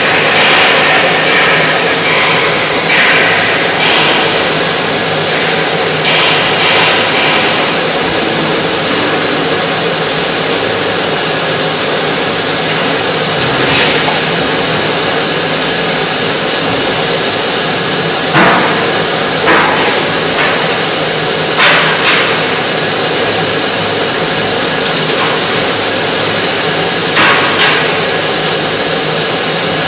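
Yanmar ViO30 mini excavator running steadily under work, with a loud hiss over the engine. Several sharp knocks break through, the clearest four in the second half.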